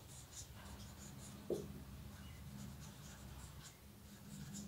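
Whiteboard marker scratching faintly across a whiteboard in short strokes as words are written.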